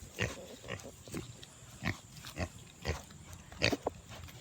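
Pig grunting in short, repeated grunts, about two a second.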